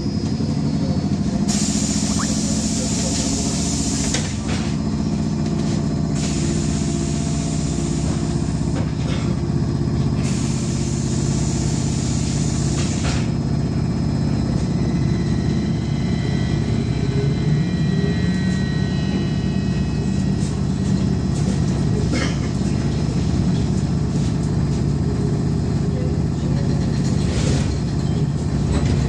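Cabin noise of a VMZ-5298.01 trolleybus on the move: a steady low rumble of the running gear and road. Three separate spells of hissing, each two to three seconds long, in the first half.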